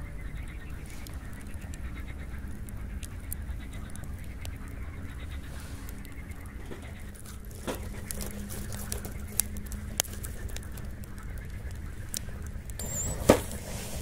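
Quiet riverside ambience: distant ducks or geese calling over a low steady rumble, with faint high bird chirps and a single sharp click shortly before the end.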